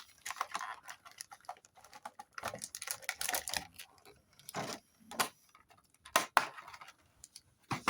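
Irregular light clicks and short rustles of trading-card booster packs being handled.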